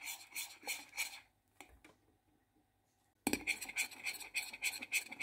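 A spoon stirring fast in a glass bowl, scraping the sides and bottom in quick even strokes of about four or five a second, with a short pause in the middle. It is stirring a heated butter, sugar, honey and egg mixture with baking soda that is foaming up. As the mass rises, the stirring sound turns softer and 'crumbly'.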